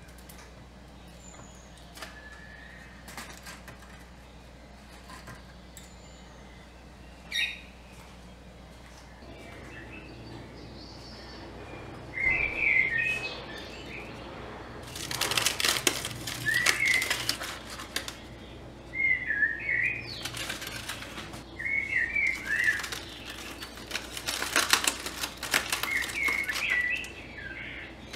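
Aluminium foil crinkling in repeated bursts as it is peeled open from around roasted garlic heads, starting about halfway through. Short high chirps sound between the bursts.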